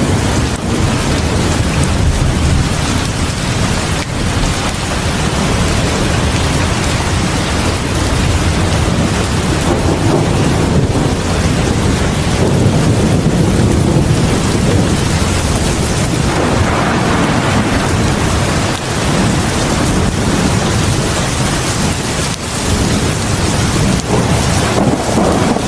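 Heavy rain pouring steadily onto a porch, a dense even hiss with a deep rumble underneath that swells slightly now and then.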